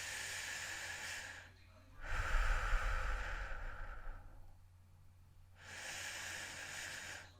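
A person breathing slowly and heavily: three long breaths of about a second and a half each. The middle breath is the loudest and blows against the microphone with a low rumble.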